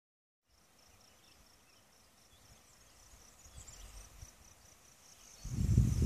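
An insect chirping in a steady, rapid train of high pulses, several a second, over a faint outdoor background. A loud low rumble comes in near the end.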